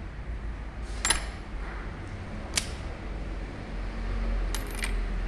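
Small steel parts of a diesel injection pump clicking and clinking against each other and the pump housing as the pump is taken apart. There are a few sharp metallic clicks with brief ringing: one about a second in, one midway and a quick cluster near the end, over a steady low rumble.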